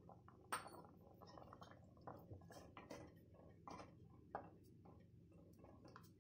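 A spatula stirring thick liquid in a metal pan, giving scattered light clicks and scrapes against the pan, the loudest about half a second in.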